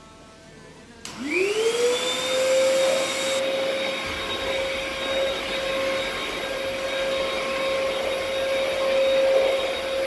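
Denpoo HR-8003 vacuum cleaner switched on about a second in, its motor whine rising quickly to a steady pitch. It then runs steadily while its floor nozzle is worked over a coarse carpet.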